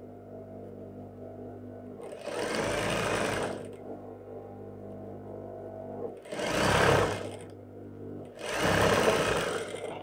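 Juki industrial sewing machine stitching in three short runs of a second or so each, sewing the elastic waistband onto the skirt and its lining, with a steady low hum between the runs.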